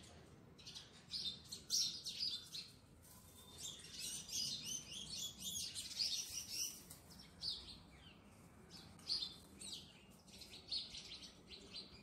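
Small birds chirping over and over in quick, high calls, with no speech.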